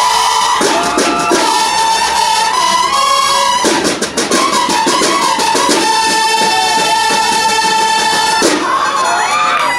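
Marching band of snare drums and brass horns playing a loud fanfare: the horns sound sustained notes, one held steadily for about two seconds past the middle, over snare drum beats and rolls.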